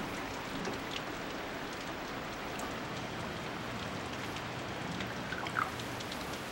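Steady rush of water: an even hiss with scattered faint ticks.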